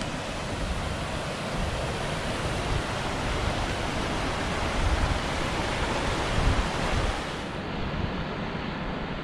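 A rocky mountain creek rushing and splashing over small cascades, a steady hiss of water that loses its high edge near the end. Wind buffets the microphone in low gusts, strongest about five and six and a half seconds in.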